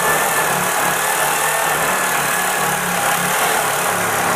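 Handheld electric double-cut sheet metal shear running steadily as it cuts through sheet steel, its blades taking out a narrow strip about 3/16 inch wide that curls off the cut.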